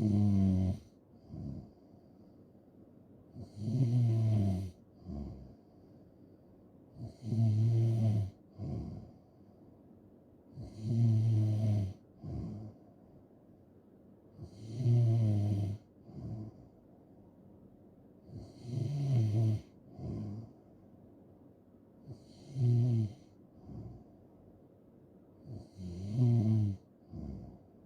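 A person snoring in a slow, steady rhythm: a loud, pitched, rattling snore about every four seconds, each followed a second later by a shorter, softer breath sound.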